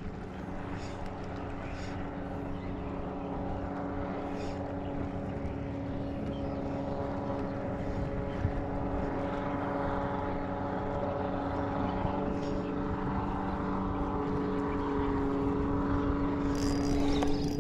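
A motor's steady, even-pitched drone, growing gradually louder, with a brief rushing noise about a second before the end.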